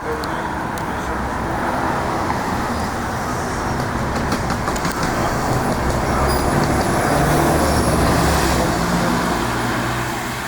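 Street traffic rumbling steadily, with a heavy vehicle passing: the rumble swells to a peak about three quarters of the way through and then eases off.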